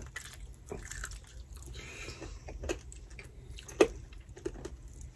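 Eating at the table: a crispy pata (deep-fried pork leg) being torn apart by hand and chewed, with scattered small crackles and clicks and one sharper knock about three-quarters of the way through.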